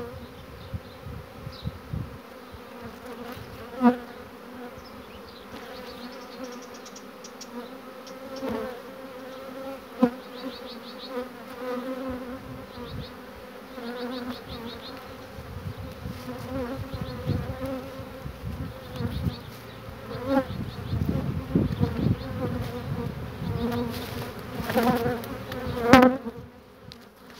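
A swarm of honeybees buzzing around a hive box as it is being hived, a steady hum with single bees buzzing louder as they pass close now and then, the loudest near the end.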